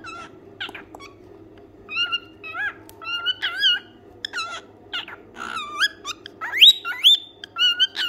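A white cockatiel calling and whistling: a string of short warbling chirps, then about six and a half seconds in a whistle that rises and holds briefly on a high note.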